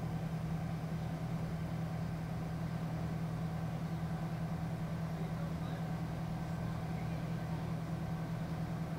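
A vehicle engine running at a steady speed: a constant, unchanging low drone with road noise above it.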